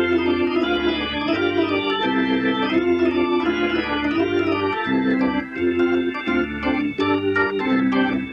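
Organ music starting suddenly from silence: sustained chords over a bass line that steps from note to note about twice a second. From about halfway through, short clicking strokes join in.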